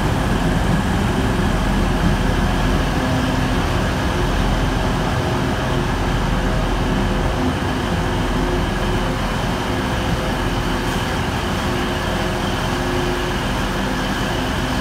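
Class 185 Siemens Desiro diesel multiple unit moving out along the platform, its Cummins diesel engines running under power with a steady, loud drone.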